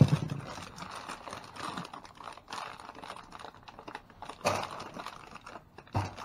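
Small clicks, rustles and knocks of salvaged goods being handled and sorted through by hand. A loud thump comes right at the start, with further knocks about four and a half and six seconds in.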